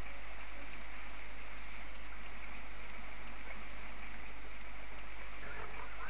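Steady, even background hiss with a low hum underneath; no distinct calls, footsteps or other events stand out.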